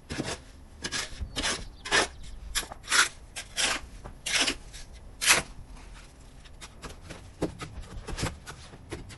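Short rasping strokes of a hand tool working wood, about two a second and uneven in rhythm, loud for the first five seconds or so, then fainter and sparser.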